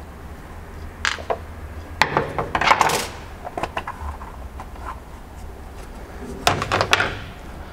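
Plastic and metal clicks and clatter as a screwdriver works on a plastic outboard remote-control box and its cover is lifted off and handled. There are single sharp clicks about one and two seconds in, a rattling cluster around three seconds, and another near the end, over a steady low hum.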